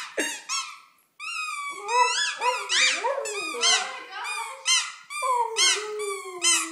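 Rubber squeaky toys squeaked over and over in quick high-pitched squeaks, with a cockapoo howling along. A longer, falling howl comes near the end.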